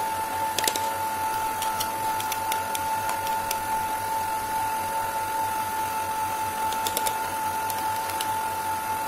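Oxone stand mixer's motor running steadily at high speed with a constant whine as its beater whips butter cream of white shortening and dissolved whipped-cream powder in the stainless steel bowl. A few light clicks sound over it.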